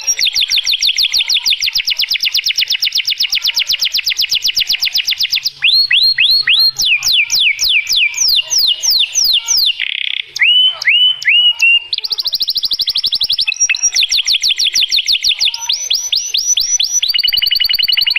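Domestic canary singing a long, loud song. It opens with a fast rolling trill of rapidly repeated notes, changes about five seconds in to a series of sharp downward-sweeping whistles with a brief break, then returns to fast trills.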